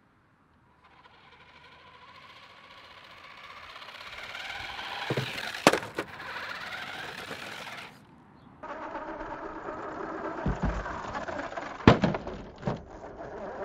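A 1/10-scale RC car's motor whining and its tyres rolling on rough tarmac, growing louder as it speeds toward the jump ramp. There are a few sharp knocks, the loudest about six seconds in and again near twelve seconds.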